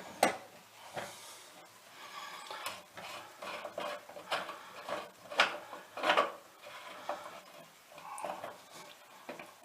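Irregular metal clinks and scrapes as the old tap body is unscrewed with a pair of grips and drawn out of the tap.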